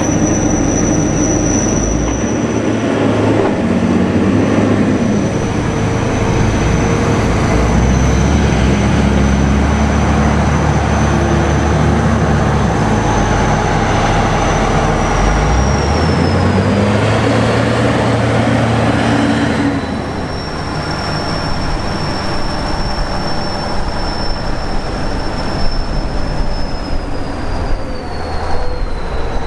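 Kirovets K-700A tractor's V8 diesel engine running hard under load while driving over a silage heap, the engine note rising and falling. A high whine runs over it and slides down in pitch about 15 seconds in and again near the end; the sound changes abruptly about 20 seconds in.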